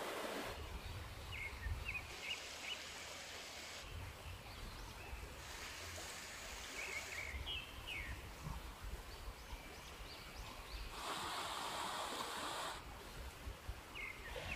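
Shallow river flowing over rocks in a steady rush, with short bird chirps three times: about a second and a half in, around seven seconds in and near the end.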